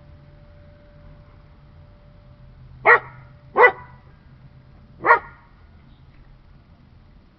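A dog barking three short, sharp times, the first two close together and the third about a second and a half later.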